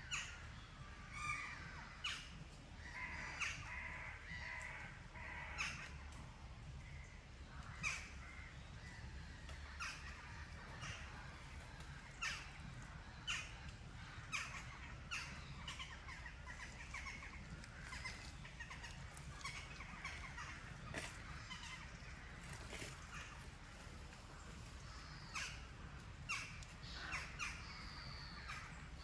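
Crows cawing at irregular intervals: short, harsh calls, some in quick clusters, over a steady low rumble.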